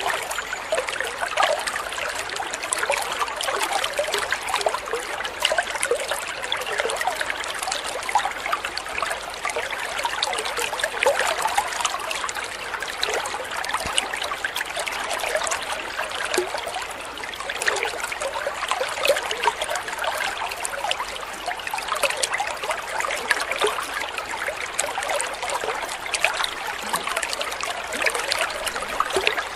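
Small stream of water pouring from an outlet into a koi pond: steady trickling and splashing with a fine, lively crackle.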